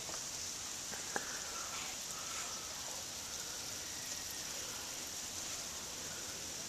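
Steady, even hiss of outdoor ambience, with one sharp click about a second in.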